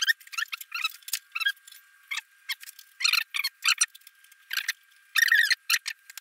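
About a dozen irregular short, high squeaky scrapes as motorcycle wiring and fittings at the rear fender are worked by hand, over a faint steady high tone.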